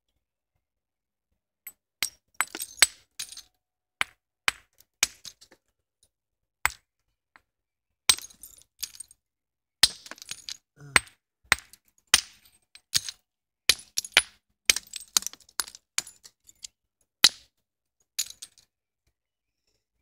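Hard hammerstone striking the edge of a flint hand-axe blank: a long, irregular series of sharp stone-on-stone clicks and knocks. This is direct percussion roughing out the biface and knocking off excess flint.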